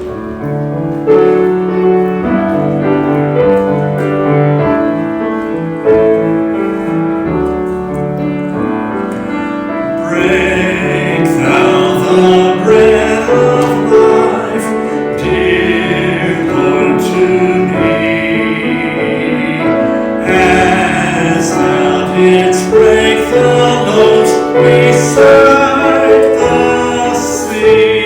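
Sacred choral music: a piano plays an introduction, and voices singing join in about ten seconds in.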